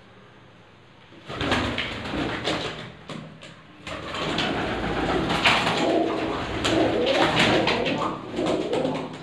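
A flock of domestic pigeons cooing, with wing flutters among them. The sound starts about a second in, dips briefly around three seconds, and is fuller from about four seconds on.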